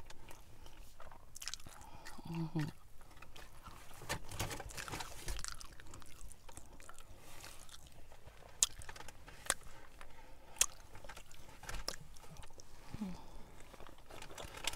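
Close-up chewing of a soft burrito, with wet mouth clicks and lip smacks and a couple of brief hummed murmurs, ending in another bite.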